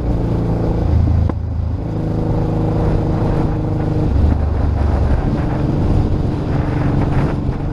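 Motorcycle engine running under the rider's own camera, with wind and road rumble, as the bike is very carefully slowed on a wet, slippery curve. The engine note shifts several times, with a short click about a second in.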